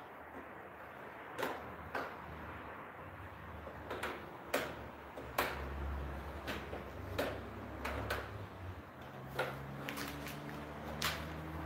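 Scattered knocks and clacks of a uPVC window sash frame being handled and fitted, plastic profile knocking against itself and the bench. A low steady hum comes in about six seconds in.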